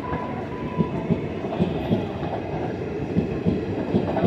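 Passenger train of ICF coaches passing close by, its wheels clattering over the rail joints in a steady clickety-clack with a low rumble underneath.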